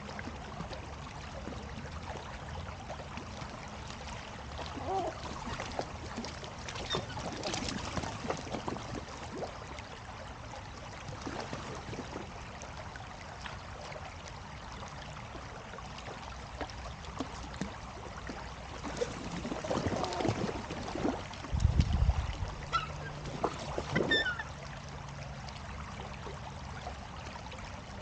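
Steady water noise with scattered seagull calls, the busiest stretch about three-quarters through. A short low rumble comes just before the last cluster of calls.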